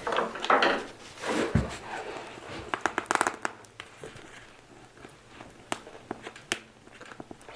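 Handling noise of tire plug tools being worked in a tubeless tire's puncture: rubbing and scraping, a dull thump about one and a half seconds in, a quick run of clicks around three seconds in, and scattered single clicks after.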